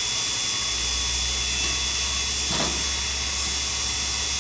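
Miniature Sherline CNC cam grinder running with a steady high-pitched whine and hiss. A low hum joins about half a second in, and a short knock comes a little past halfway.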